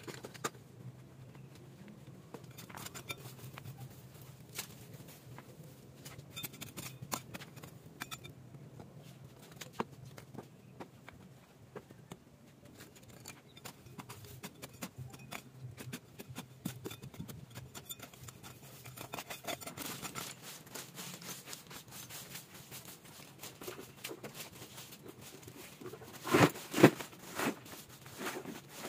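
Stones and broken bricks knocking and scraping as they are picked up and set down by hand, in scattered clicks. Near the end a louder clatter of rubble. A faint low hum sits underneath for the first two-thirds.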